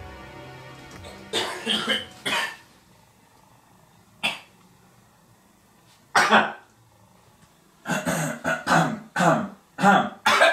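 A man coughing and clearing his throat in short fits: a few coughs about a second and a half in, single ones around four and six seconds, then a quick run of coughs near the end.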